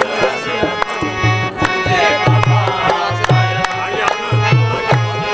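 Live qawwali music: hand drums beating a steady rhythm under a harmonium's sustained chords, with voices singing and sharp hand claps keeping time.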